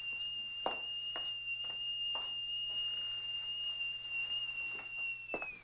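Stovetop kettle whistling at the boil: one steady high tone that sags in pitch and dies away near the end. A few light knocks sound through it.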